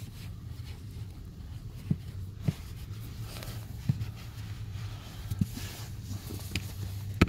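A few light knocks and taps, about five in all, over a steady low hum: the handling noise of a phone and a work light being moved about in a car's footwell.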